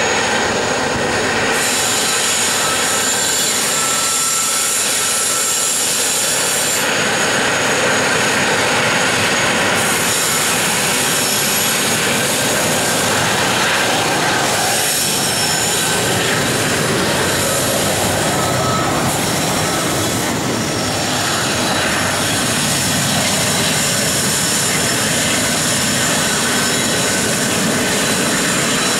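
Heavily loaded coal train climbing a grade: diesel-electric locomotives working hard under power, with the steady rumble of the loaded coal wagons rolling past and now and then a thin wheel squeal.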